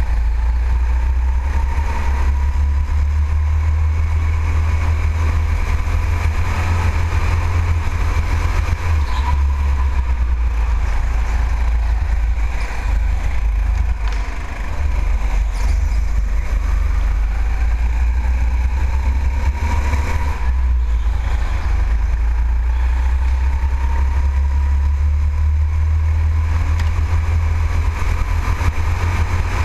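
Go-kart running flat out around an indoor track, heard from a camera mounted on the kart: a steady heavy rumble with a whine that rises and falls as the kart speeds up and slows for the corners.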